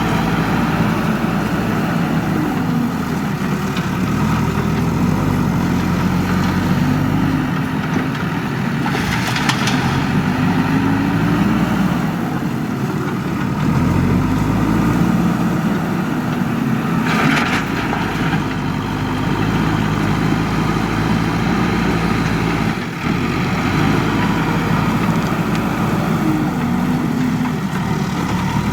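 Diesel engine of a JCB 3DX backhoe loader running, its pitch rising and falling as it works under load. There are two short hisses, about nine seconds in and again near eighteen seconds.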